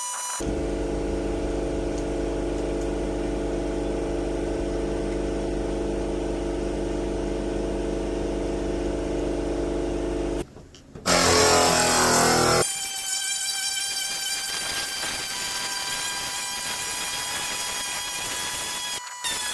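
Pneumatic dual-action sander working car body panels, heard in several cut clips: a steady low hum for about ten seconds, then after a cut a short stretch of loud grinding noise, then a steady high whine.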